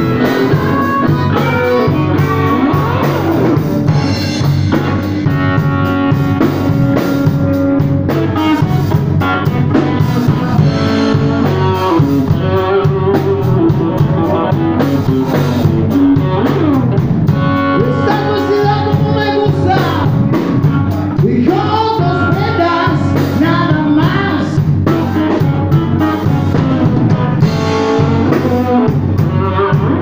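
A blues band playing live: electric guitar, electric bass and drum kit, with a blues harmonica played into a vocal microphone, its bending notes over the band.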